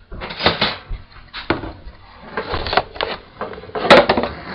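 Irregular knocks and clatter of a chopping board and knife being handled, with a sharp click near the end.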